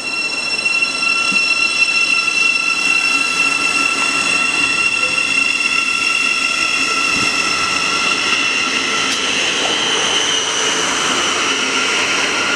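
Thameslink Class 700 electric multiple unit pulling away from the platform and running past, with a steady high whine over the rumble of its carriages. It grows louder over the first second.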